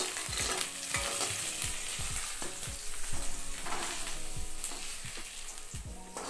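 Oil sizzling in a blackened kadai while a metal spatula scrapes and knocks against it again and again, lifting out fried dried shrimp.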